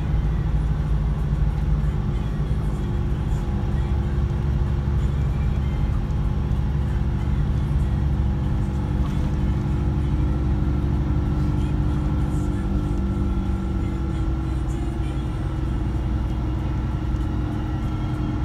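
Scania K124 coach engine, a 12-litre straight-six, running steadily with the coach on the move, heard from inside the saloon of an Irizar PB coach as a low drone with road rumble. A faint higher whine joins about halfway through.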